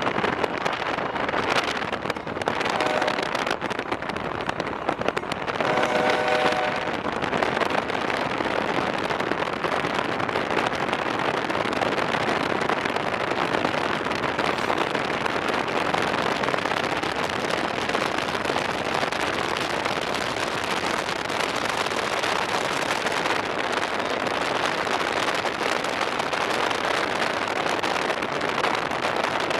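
A loud, steady rushing noise runs throughout, with a locomotive horn chord sounding twice: briefly about three seconds in and again for about a second at six seconds.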